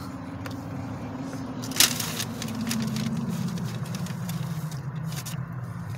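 A car going past, its low engine and road hum swelling through the middle and slowly falling in pitch. There is a single sharp click about two seconds in.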